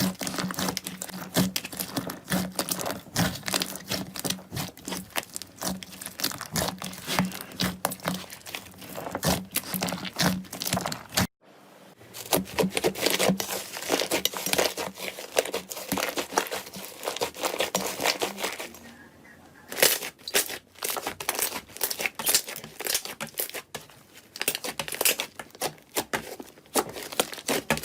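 Slime being squeezed, pressed and stretched by hand, giving a dense run of irregular crackles, pops and sticky clicks. The sound breaks off sharply about 11 seconds in and resumes as a new clip, and dips briefly about 19 seconds in.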